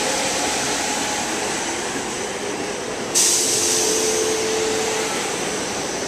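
SEPTA Silverliner IV electric commuter train pulling out of the station, its cars rolling past with a steady running noise. About three seconds in, a sudden loud hiss of air starts and keeps going, with a brief steady hum alongside it.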